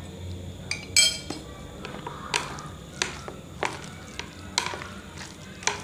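Chopsticks and a spoon stirring and tossing a plate of chicken noodles, with a soft scraping stir and a scattering of sharp clicks and taps as the utensils knock against the ceramic plate, the loudest about a second in.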